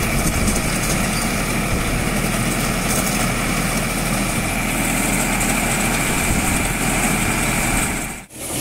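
Tractor engine running steadily while it drives a corn thresher that is being fed cobs, giving a constant, dense machine noise. The sound drops out for a moment near the end.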